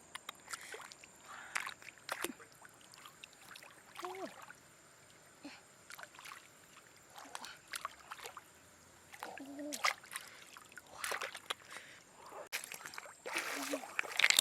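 Water splashing and sloshing in irregular bursts, with scattered clicks and a few brief pitched sounds; the loudest splash comes at the very end.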